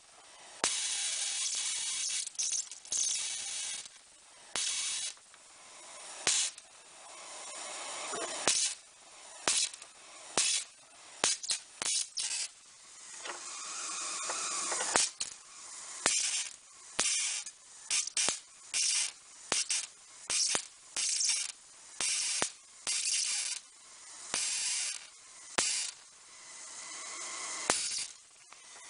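High-voltage arc from a flyback transformer driven by a single KT808A transistor, crackling and hissing in repeated short bursts that start and stop sharply, about one a second through the second half, with a fainter hiss swelling between them.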